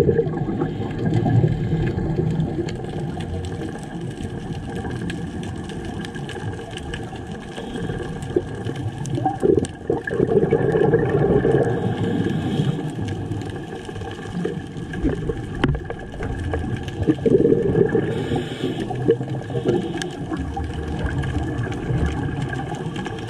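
Muffled underwater noise picked up through a waterproof camera housing, with the gurgle of a scuba diver's exhaled bubbles swelling every several seconds.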